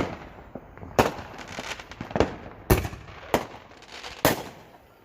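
Aerial fireworks going off: about six sharp bangs at uneven intervals of half a second to a second, each with a short trailing echo.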